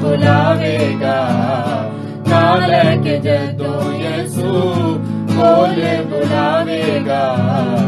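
Christian devotional song: a singer's voice in wavering phrases over acoustic guitar and a steady instrumental backing.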